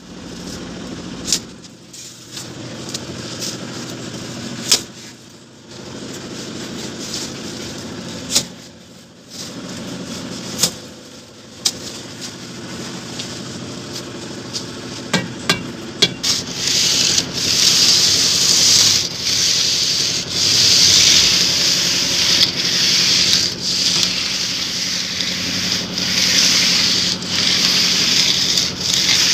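A wooden straightedge scraped back and forth over fresh cement plaster on an AAC-block wall to level it: repeated rasping strokes about every one and a half seconds, starting about halfway in. Before that there are only a low hum and a few sharp clicks.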